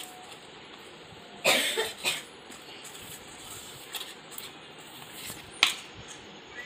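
Hand kneading soft, sticky pizza dough in a stainless steel bowl: quiet squishing with a few sudden slaps and knocks, the loudest a sharp knock near the end.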